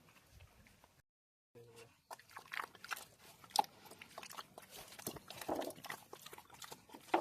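Pigs eating, with many irregular crunching and chewing clicks from feed being bitten. The sound cuts out for about half a second near the start.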